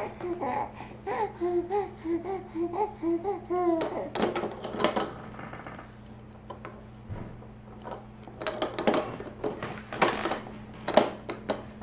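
Baby babbling a quick string of short sing-song syllables for the first few seconds. Then come scattered clicks and knocks of hard plastic toys on a baby activity center as she bats at them, over a steady low hum.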